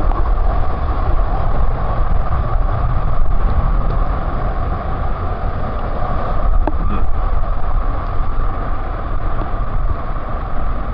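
Steady, loud rush of falling water from a waterfall, heavy in the low end.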